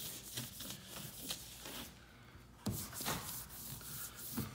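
Soft rustling and rubbing of a photomural wallpaper panel being handled and worked against the wall, in short irregular strokes with one firmer stroke a little over halfway through.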